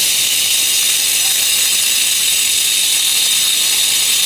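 Grinder running steadily against metal, a loud, even hiss.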